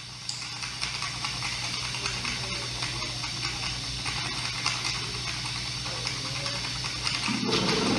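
Experimental noise music: a crackling hiss over a steady low hum, with a denser, louder lower layer coming in near the end.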